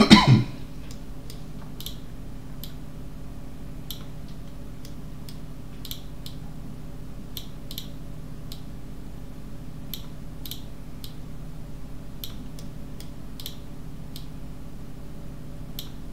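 Computer mouse clicking at irregular intervals, about once a second, over a steady low electrical hum.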